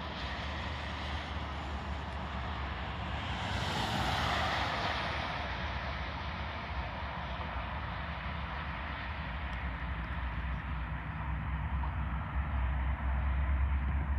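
Train rumbling: a steady low rumble with a rushing noise that swells about four seconds in, the rumble growing louder near the end.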